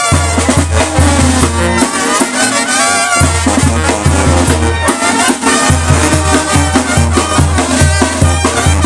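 Brass band music with trumpets and drums over a steady bass beat. The bass drops out for about a second partway through, then comes back.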